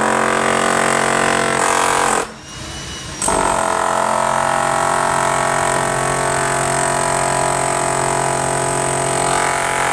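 Music: a loud, steady droning tone with many overtones, breaking off for about a second just after two seconds in and then resuming.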